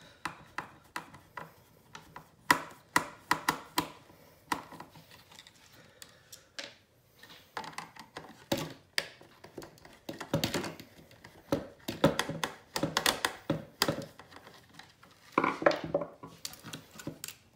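Irregular clicks, taps and rattles of a screwdriver and hands working on a robot vacuum's plastic chassis while Phillips screws are backed out of the suction motor mount.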